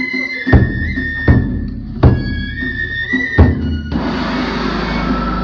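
Japanese festival music: bamboo flutes playing a held, high melody over four loud, unevenly spaced drum beats. About four seconds in the flutes stop and a steady hiss takes over.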